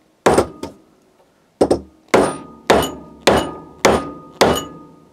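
Soft-faced mallet striking a steel-shaft 3D-printer frame to drive it about 2 mm further down onto its blocks. There are eight blows: two close together at the start, then six about half a second apart. Each blow leaves a short metallic ring from the steel rods.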